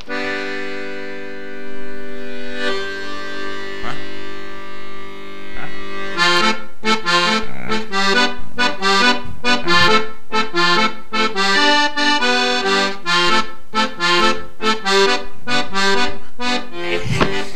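Instrumental soundtrack music: a chord held for about six seconds, then a quick, lively tune of short notes.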